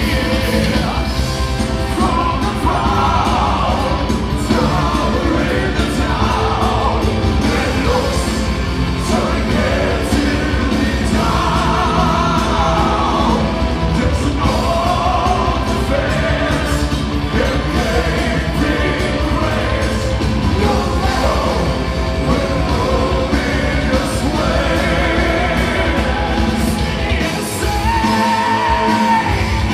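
Symphonic metal band playing live through a loud PA: a singer holding notes with vibrato over drums, guitars and keyboards, heard from among the audience. The low end drops out briefly near the end.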